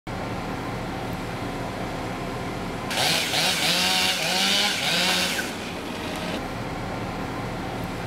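A chainsaw revs hard for about two and a half seconds, starting about three seconds in, its pitch rising and falling, over a steady engine hum.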